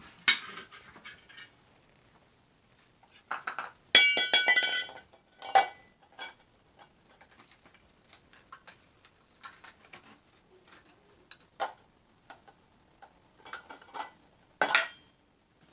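Toy pots and pans and play food being handled, with scattered light knocks and clinks. About four seconds in there is a louder ringing clink.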